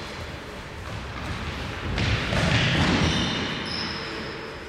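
Futsal match play in an echoing sports hall: the ball thuds off feet and the wooden floor, loudest about two seconds in. Players' indoor shoes squeak briefly on the floor in the second half.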